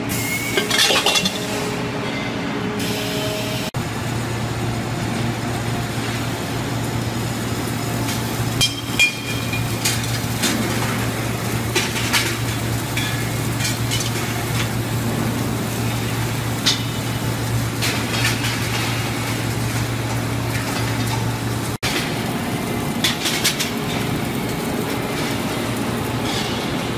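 Factory-floor noise on a gas-cylinder production line: a steady machine hum with scattered metallic clinks and clanks as steel cylinders and parts are handled on the roller conveyors.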